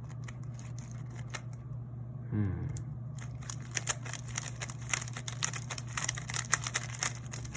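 Plastic speed cube being turned by hand, its layers clicking, sparsely at first and then rapidly from about three seconds in, as freshly applied lubricant is worked in. A steady low hum sits underneath.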